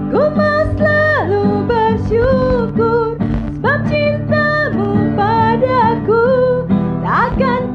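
A woman singing a worship song in Indonesian over acoustic guitar, with held, sliding sung notes.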